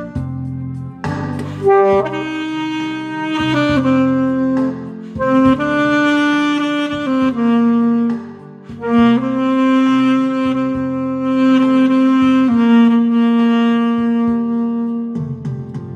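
Saxophone playing a slow melody of long held notes, phrase by phrase, over a backing track with bass.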